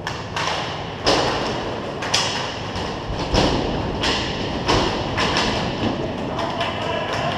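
Hockey play: hockey sticks clacking and striking the puck or ball, a string of sharp knocks and thuds every second or so, ringing on in the arena's echo.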